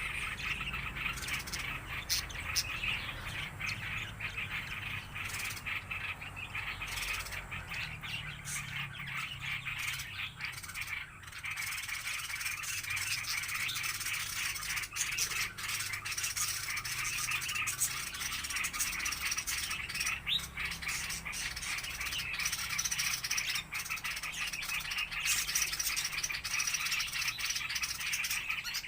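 A flock of small aviary birds chirping and chattering all at once, a dense continuous twitter broken by many short sharp calls.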